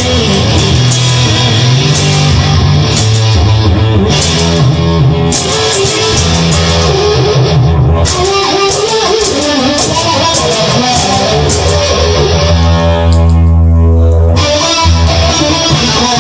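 Instrumental break of a rock song: electric guitar and bass over drums. Near the end the top end drops away for about two seconds under one long held guitar chord before the full band comes back in.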